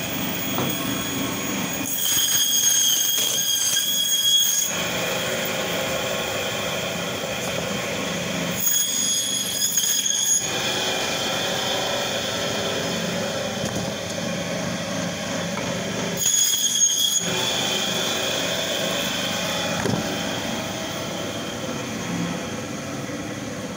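Meat band saw running steadily, its blade squealing high and shrill in three spells as it cuts through catla carp. The spells come about 2 seconds in, about 9 seconds in and about 16 seconds in, and last one to three seconds each.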